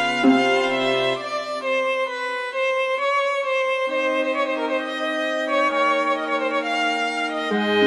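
Background music led by a violin, playing long held notes over a sustained lower accompaniment.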